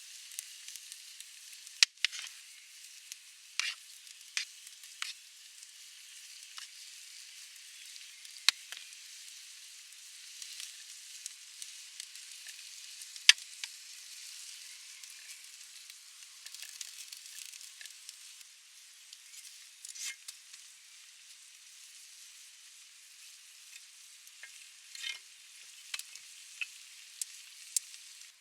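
Food frying in a pan, a steady hiss with scattered sharp pops and crackles.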